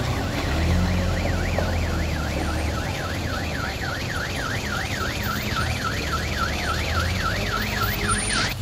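Electronic warbling alarm, its pitch sweeping rapidly up and down about four times a second and cutting off abruptly near the end. Beneath it is the low, steady drone of a truck engine pulling slowly up a rutted dirt slope.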